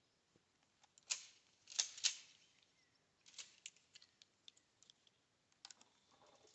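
A run of sharp clicks and clacks from handling a Stevens 320 pump-action shotgun and its shells, with the three loudest close together between about one and two seconds in.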